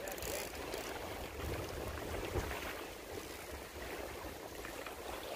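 Water lapping and washing against the shoreline rocks, with a low rumble of wind on the microphone.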